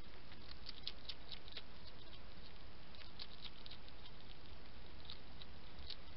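European hedgehog eating at a feeding spot: irregular small crunchy clicks and smacks, coming in short runs, over a steady background hiss.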